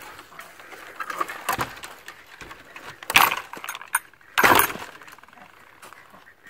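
Wire-mesh chicken pen gate pulled shut and latched: the metal latch clanks and the mesh rattles in three sharp knocks, about 1.5, 3 and 4.5 seconds in, the last two loudest.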